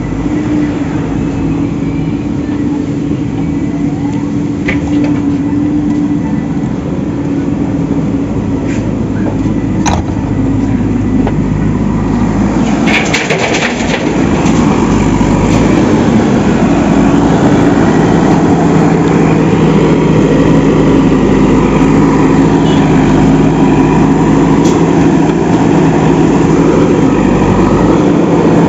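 Engine running steadily with a constant hum, a few short knocks and clatters about ten and thirteen seconds in, and a little louder from about halfway.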